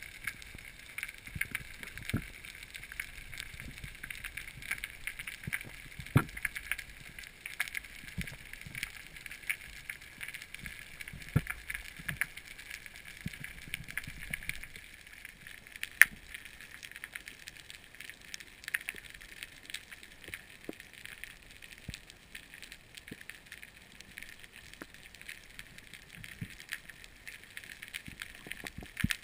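Underwater ambience picked up by a camera in a waterproof housing: a steady hiss with constant faint crackling and scattered sharper clicks, the loudest about sixteen seconds in.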